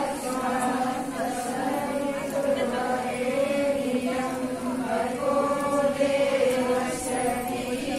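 Group of voices chanting a Hindu mantra together in unison, in long held notes with short breaks between phrases.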